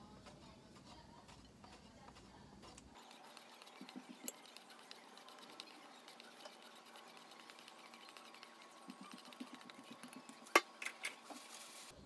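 Block of Grana Padano rubbed on a flat handheld metal grater, faint rasping strokes with scattered light ticks. A single sharp click comes near the end.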